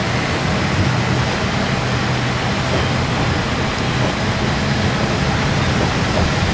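Diesel engine of a Japanese National Railways KiHa 35-series diesel railcar, heard from inside the cabin, running steadily under power with a low hum over rolling noise as the railcar pulls away from a station.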